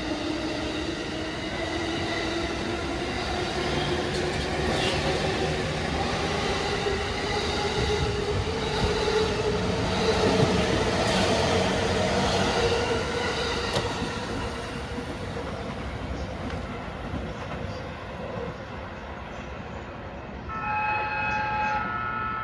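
JR Tohoku Line commuter electric train departing: the traction motors' whine rises slowly in pitch as it accelerates, over wheel and rail rumble, then fades as the train moves away. Near the end a steady ringing of several tones starts suddenly.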